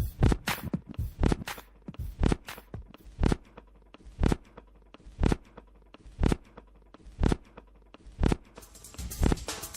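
Background music in a sparse passage: sharp percussive hits, quick at first, then single beats about once a second, with a busier rhythm coming back near the end.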